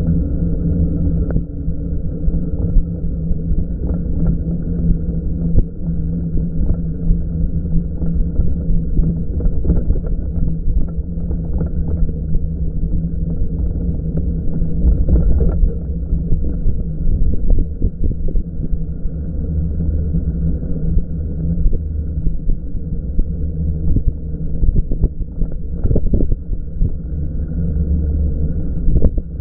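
Deep, muffled rumble of wind and riding noise on an electric bike, with steady low droning tones and scattered clicks.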